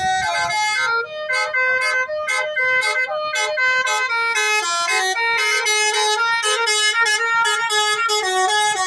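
Bus basuri horn, the multi-tone air horn of Indonesian 'telolet' buses, playing a tune in quick stepped notes, each note held briefly with short breaks between.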